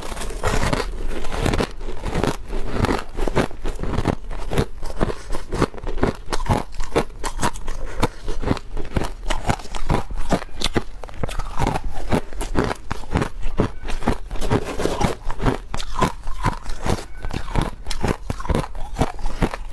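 Hard white ice being bitten and chewed close to the microphone: a continuous run of crisp crunches and cracks, several a second.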